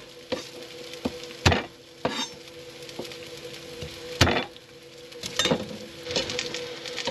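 A chef's knife knocking sharply on a plastic cutting board several times as garlic cloves are crushed with the blade and cut, the loudest knocks about one and a half and four seconds in. Onions sizzle in hot oil in the pan throughout, with a faint steady hum.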